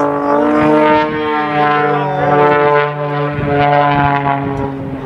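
Single-engine aerobatic plane's engine and propeller droning as it dives, the pitch of its tones shifting up and down.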